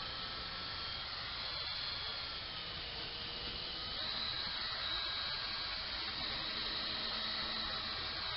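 Electric power tool motor running steadily with a whine whose pitch shifts slightly about four seconds in, then cuts off abruptly at the end.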